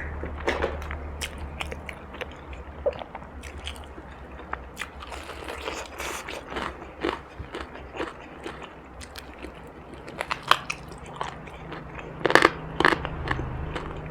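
Close-miked biting and chewing of crunchy food: a run of crackling crunches, with the loudest bites near the end.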